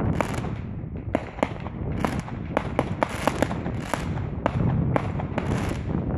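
Fireworks going off: a rapid, irregular string of sharp bangs and cracks from bursting aerial shells, several a second, over a low continuous rumble.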